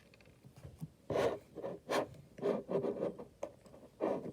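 Bead-filled crunchy slime being squeezed and poked: a string of about six short, scratchy crunches.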